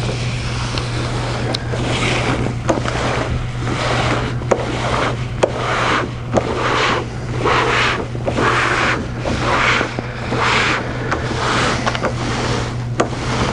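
A backing sheet peeling off as a roll laminator is turned: papery rustling in repeated pulses about every half second, over a steady low hum.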